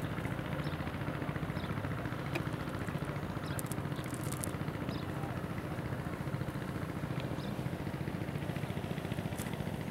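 A small engine running steadily, a low, rapid chugging, with a few faint high ticks over it.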